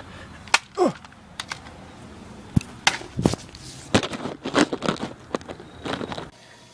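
A rapid, irregular series of sharp knocks and thuds from a handheld camera being jostled during a scuffle, with a short sound falling in pitch about a second in. It cuts off abruptly near the end.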